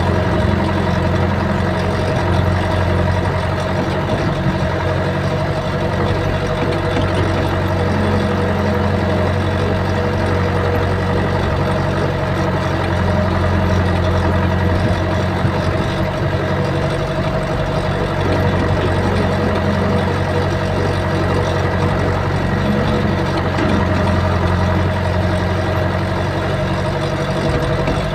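Hydraulic excavator's diesel engine running steadily under work, heard from inside the operator's cab: a low drone with a steady higher tone above it.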